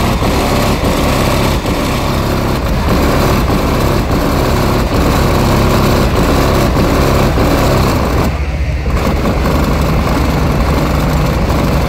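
Loud bass from a competition car-audio system in a pickup truck, playing through the closed cab as a steady, heavy rumble. The upper part of the sound briefly drops away about eight seconds in while the bass carries on.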